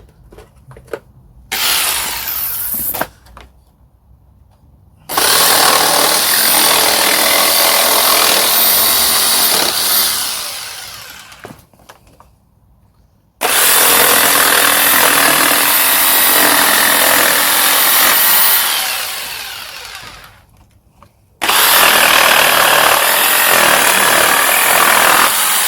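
Jigsaw cutting wood: a short burst, then three runs of about five seconds each. Each run tapers off as the motor winds down after the trigger is let go.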